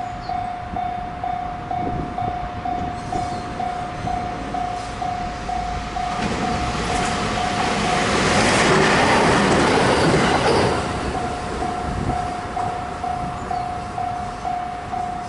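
Japanese level-crossing warning bell ringing in an even pulse, about three rings a second. A train passing over the crossing swells up from about six seconds in, is loudest around nine to ten seconds and covers the bell, then fades while the bell rings on.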